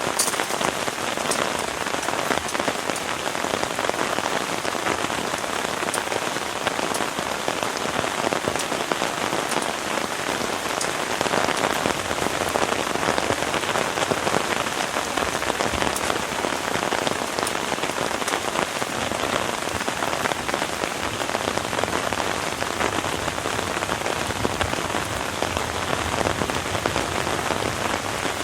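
Heavy rain falling steadily, with sharp individual drop hits ticking through the dense hiss.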